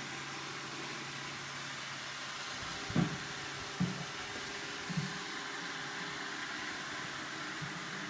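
Roomba robot vacuum running with a steady whir, broken by a few short low thumps, the loudest about three seconds in.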